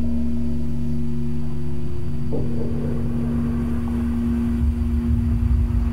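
Dark ambient industrial soundtrack: a steady, machine-like low droning hum over a deep rumble. A rough, noisy swell comes in about two and a half seconds in, and the rumble grows uneven and pulsing near the end.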